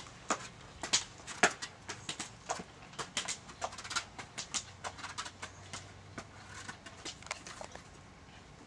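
Forearm crutch tips and small shoes tapping and scuffing on a concrete patio in an irregular run of clicks as a child walks on crutches, growing fainter near the end.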